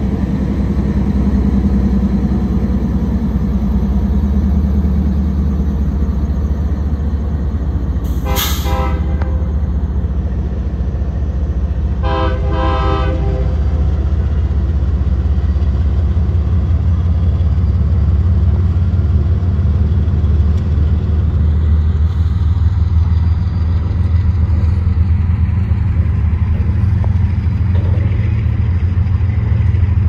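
Union Pacific freight train passing close: the diesel locomotives and then loaded covered hopper cars make a steady, heavy rumble. Two short horn blasts sound, one about 8 seconds in and a slightly longer one about 12 seconds in.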